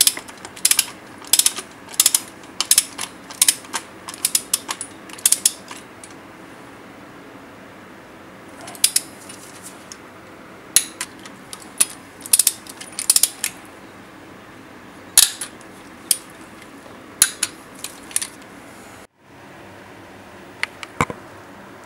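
A ratchet wrench clicking in short, irregular runs as the intake manifold bolts of a 1990 Saab 900S engine are tightened. The clicks come thick for the first few seconds and then more sparsely, and the sound briefly cuts out near the end.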